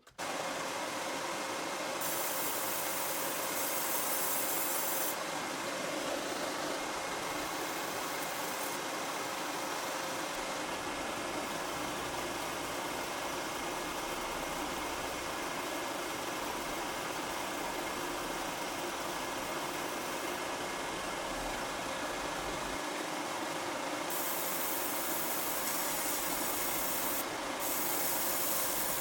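A small machine running steadily with a hum, and a high hiss that grows stronger for a few seconds near the start and again near the end.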